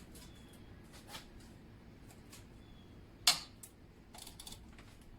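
Hand tools working on the pitch stop mount bolts: a few light metallic clicks and one sharp metal clank a little past the midpoint.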